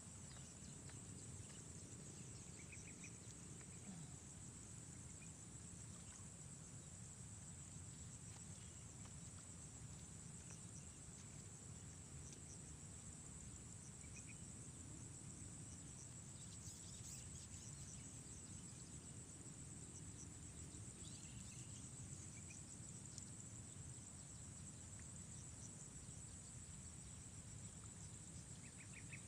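Faint, steady high-pitched insect chorus over a low rumble, with a few short chirps now and then.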